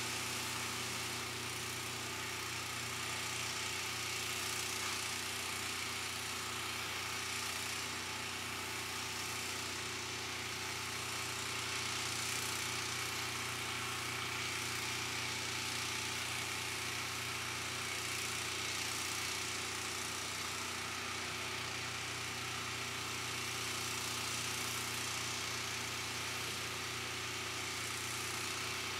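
A steady mechanical hum with an even hiss over it, unchanging throughout, as from a running motor or machine.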